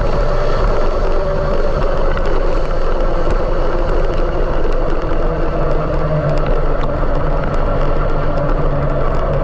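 Steady, loud rumble and hum of a running vehicle, with no let-up or change.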